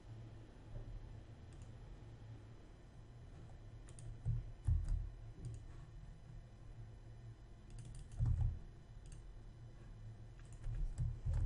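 Computer mouse clicks and keyboard keystrokes at a desk: a few scattered clicks with soft low thuds, then a quicker run of key taps near the end as a name is typed into a form field.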